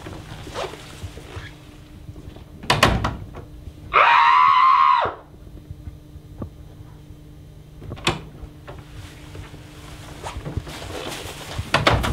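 Hospital ward double doors swinging shut with a thud, then, about a second later, a loud, high, held sound lasting about a second. Another knock of the doors comes later.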